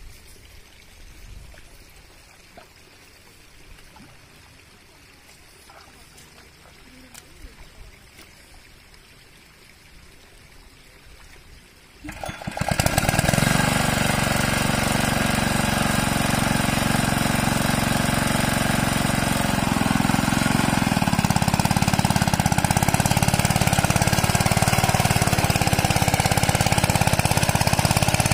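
Quiet with only faint background sounds for about twelve seconds, then a hand tractor's engine is started and runs loud and steady with a rapid even beat, picking up a little about twenty seconds in. This is the engine being restarted after stalling under the overloaded plow.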